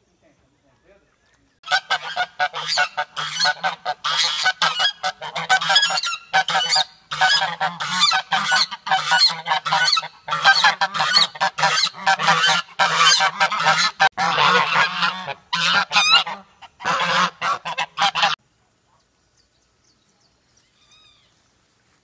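A flock of domestic geese honking loudly and continuously, starting about two seconds in and cutting off abruptly a few seconds before the end.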